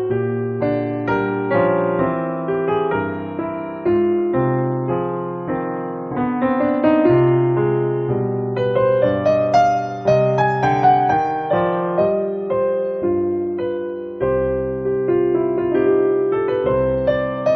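Background piano music: a steady stream of notes, each struck and left to fade.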